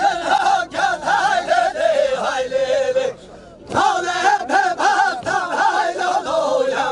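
Unaccompanied Kurdish folk singing for a govend line dance: voice only, with no instruments. It comes in two long sung phrases with a short break about three seconds in.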